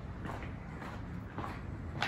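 Footsteps walking at a steady pace, about two steps a second.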